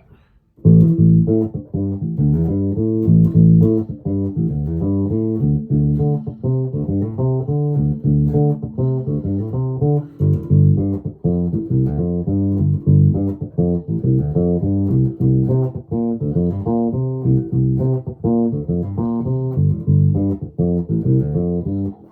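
1996 Alembic Epic four-string electric bass played on its bridge pickup with the treble cut: a continuous run of plucked notes and riffs with a dark tone, starting about half a second in.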